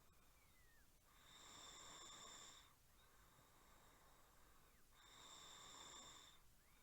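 Person snoring faintly: two slow snores about four seconds apart, each swelling and fading over about a second and a half, with a thin high whistling tone riding on each.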